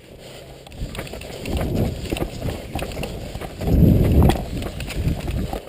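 Running footsteps with gear knocking and wind rumbling on the microphone, loudest about four seconds in.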